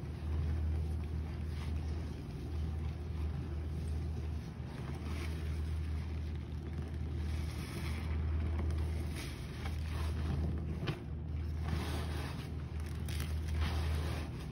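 Cloth squeezed and kneaded by rubber-gloved hands in a tub of thick, foamy detergent-and-bleach suds: wet squelching and sloshing, with sharper squelches now and then, over a steady low rumble.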